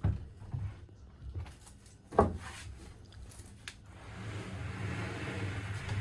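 Knocks and one sharp thud about two seconds in as a galley bench top is handled and worked into place, then a steady scraping rub from about four seconds in.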